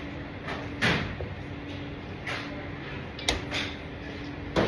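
Kitchen handling noises: three sharp knocks or clunks about a second, three seconds and four and a half seconds in, with a couple of softer ones between, over a steady low hum.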